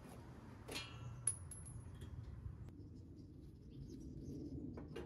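Quiet handling sounds of a cordless drill and small metal parts: a few light clicks, with one short metallic clink just over a second in.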